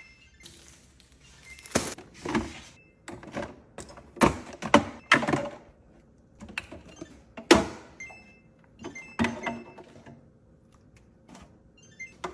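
Food containers and jars being taken out of a refrigerator and set down: an irregular series of thunks and knocks with some clatter, the loudest about two seconds in, around four to five seconds in, and at seven and a half seconds.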